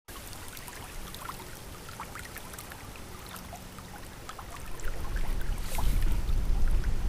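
Water lapping and trickling, with many small plinks and splashes. A much louder low rumble comes in about five seconds in.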